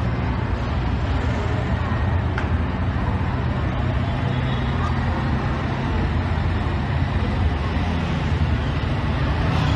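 Street traffic: a steady low rumble of vehicle engines and road noise.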